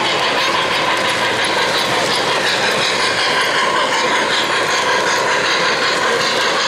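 O-gauge model steam locomotive and freight cars running steadily along three-rail track.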